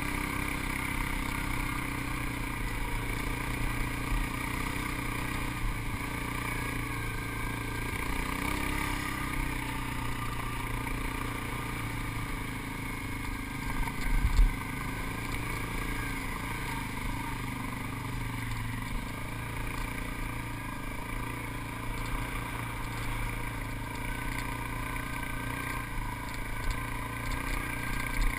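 ATV engine running at a steady, even pace while riding over sand. One short low thump about halfway through.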